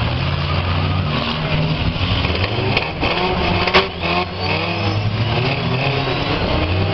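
Demolition derby cars' engines running and revving, with one sharp bang just before four seconds in.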